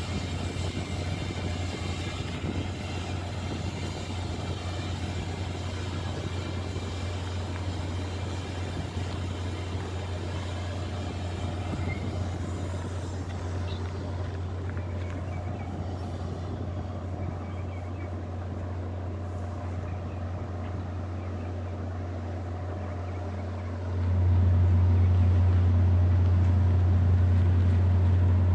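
Steady low diesel drone from a standing MBTA commuter train, which grows clearly louder and fuller about four seconds before the end.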